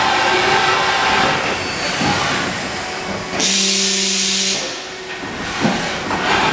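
A loud burst of hissing air, about a second long, a little past the middle, with a low steady hum inside it. Under it runs a steady whir of shop machinery.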